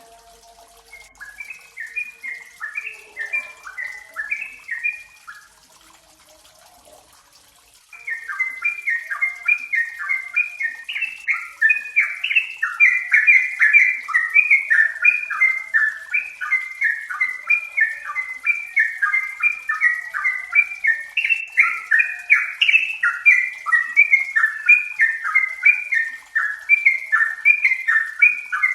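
Yellow-vented bulbul singing: a short run of quick chattering phrases, a pause of a few seconds, then about eight seconds in a long, unbroken stream of rapid notes, several a second.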